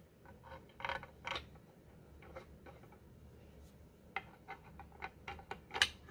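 Light, scattered clicks and taps of small metal screws being handled and set by hand into the pre-drilled holes of a wooden barstool leg. A short cluster about a second in, then a quicker run of clicks in the second half, the loudest just before the end.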